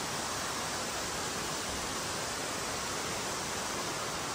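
Steady rushing of an indoor waterfall, an even wash of falling water with no breaks.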